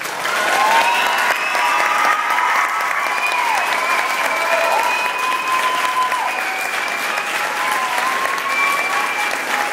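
A large audience applauding steadily throughout, with long held whooping cheers rising and falling over the clapping.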